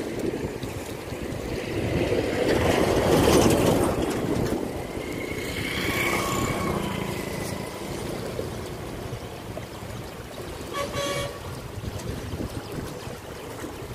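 Steady outdoor rushing noise, loudest in the first few seconds, with a horn-like tone held for about a second and a half about six seconds in and a shorter, broken horn-like sound near eleven seconds.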